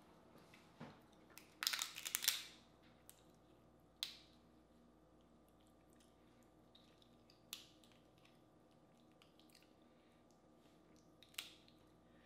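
Boiled crawfish shells cracking and crackling as they are peeled by hand, loudest in a short run of crackles about two seconds in, followed by a few single clicks and smacks of eating.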